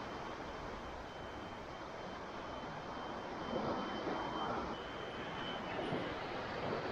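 Small waves washing in over wet sand, with a low steady rumble of wind and surf, swelling gently a few times. A faint steady high tone runs through the middle.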